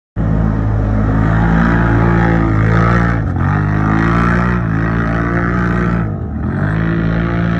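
An off-road vehicle's engine running hard under throttle. Its pitch drops briefly and climbs again twice, about three seconds and about six seconds in, as with gear shifts or throttle lifts.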